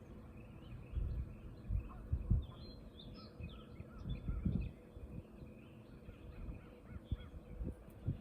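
A few dull knocks and bumps, like gear being handled in a boat, with birds calling in the background, mostly a little past the middle.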